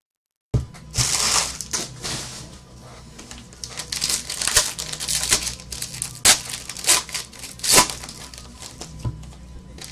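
Foil wrapper of a sealed trading card pack crinkling and tearing as it is opened by hand, in a run of rustles and sharp crackles. The sound starts after about half a second of dead silence.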